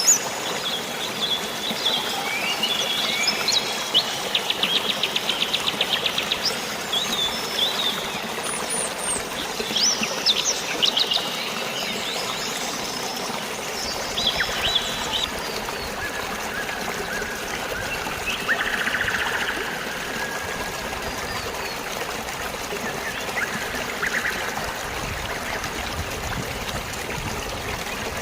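Songbirds chirping and calling over a steady wash of running water, with a fast trill a few seconds in; the calls thin out in the second half.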